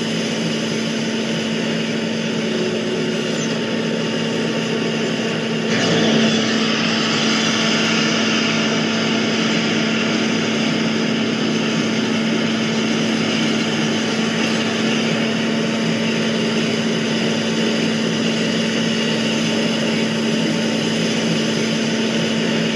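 Machinery running steadily with a constant hum, growing a little louder and fuller about six seconds in.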